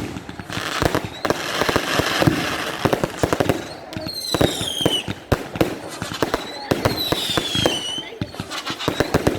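Fireworks going off: a fast run of bangs and crackles, with a falling whistle of about a second sounding twice, about four and about seven seconds in.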